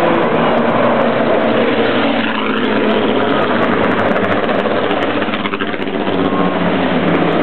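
Historic Lola racing cars driving past one after another at parade pace, their racing engines loud and revving as each goes by. The sound eases briefly twice, in the gaps between cars.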